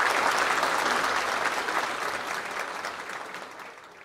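Audience applauding, the clapping dying away over the last second or two.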